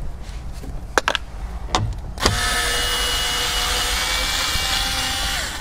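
A few light clicks and knocks of a cordless electric screwdriver's bit being set on a screw. Then its motor runs with a steady whine for about three seconds, backing out a trim screw, and stops shortly before the end.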